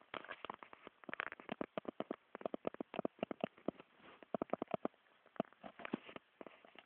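A person snoring: a rattling string of rapid clicks in several short bouts.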